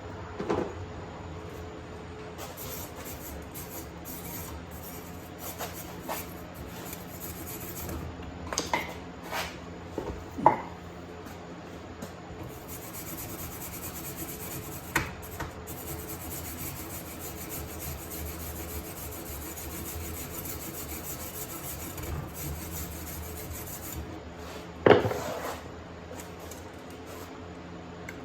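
Metal pieces being handled in a workshop: scraping and rubbing, with a few sharp clanks, the loudest near the end, over a steady hum.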